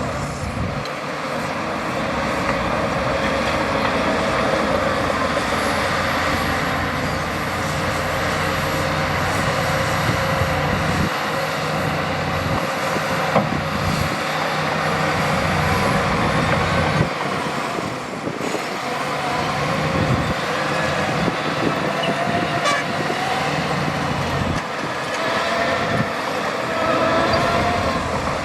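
Heavy diesel earthmoving machinery running steadily under load: dump truck and bulldozer engines working on a soil site.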